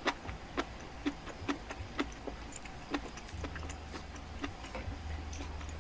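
A person chewing a burger close to the microphone: sharp mouth clicks and smacks about twice a second.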